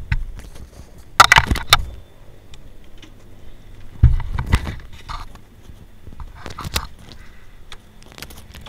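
Handling noise on a wired microphone and its cable: rubbing, scraping and knocks, in clusters about a second in, around four seconds in and around six and a half seconds in, over a low rumble that dies away about two seconds in.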